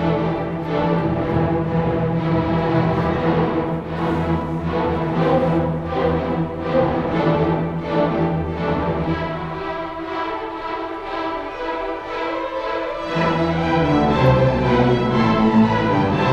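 High school orchestra playing classical music. The bass line drops out for a few seconds past the middle and comes back in about three seconds before the end.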